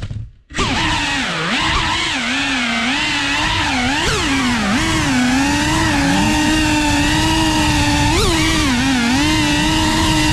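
FPV quadcopter's brushless motors whining, the pitch swooping up and down continually with the throttle. The sound cuts out almost completely for a moment just after the start, then the motors spin back up.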